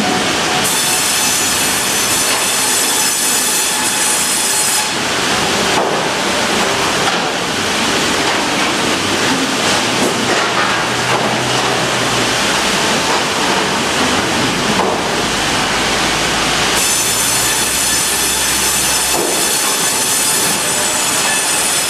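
Tandem vertical log bandsaws running and cutting a log as a hydraulic log carriage feeds it through: a loud, steady hiss of sawing. A high ringing whine comes in twice, for a few seconds near the start and again near the end, and a low hum sounds in the middle.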